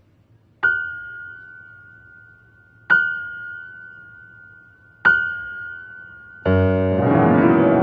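Yamaha grand piano: the same high note struck three times, about two seconds apart, each ringing and fading away, then about six and a half seconds in a loud low chord with a quick upward run over it.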